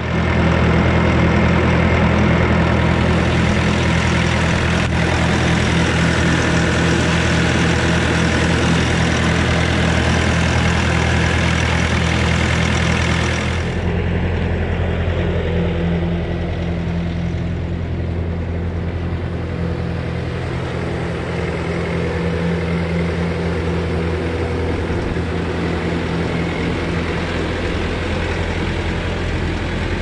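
Bobcat S590 skid steer's diesel engine running steadily. About halfway through it turns lower and duller and carries on steady.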